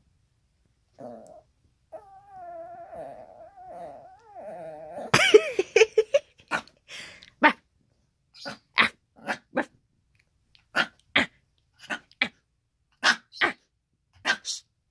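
Chihuahua vocalising at its owner: a long, wavering grumbling whine, then from about five seconds in a string of short, sharp yaps and barks, which the owner calls back sass.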